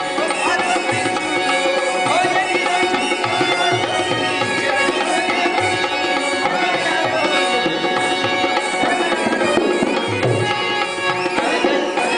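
Rajasthani folk music: a dholak barrel drum beaten by hand in a steady rhythm under a wavering melody line.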